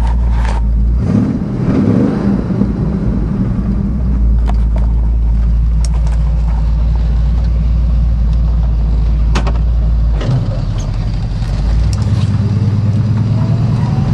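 1972 Ford F-100's 390 FE V8 running through Hooker competition headers and glass-pack dual exhaust, a mellow exhaust note. The note rises briefly about a second in and shifts again near the end.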